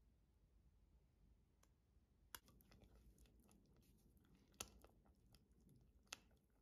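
Faint sound of a silicone spatula stirring thick milk pudding in a stainless steel pot: soft wet scraping that starts about two seconds in. Three sharp knocks of the spatula against the pot come about two, four and a half and six seconds in.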